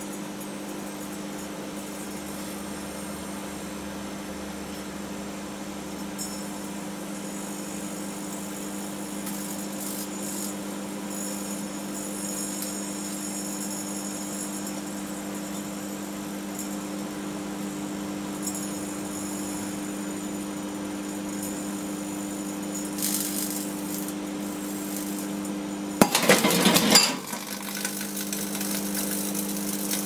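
A microwave oven runs with a steady hum and a faint high whine while a sealed beam headlight glows with plasma inside it. Near the end, a loud harsh crackle lasts about a second as the headlight gives out.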